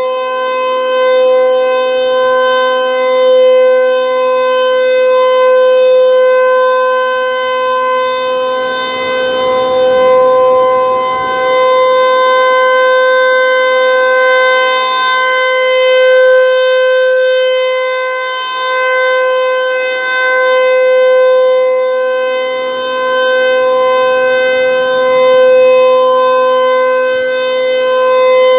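Federal Signal 508-128 outdoor warning siren sounding a steady alert tone. The pitch holds level while the loudness swells and fades every few seconds as the rotating horn sweeps past.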